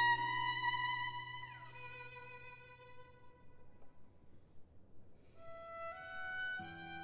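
Slow violin music. A held note fades with a downward slide about a second and a half in, there is a quiet pause, and then the melody resumes over lower accompanying notes in the last second or two.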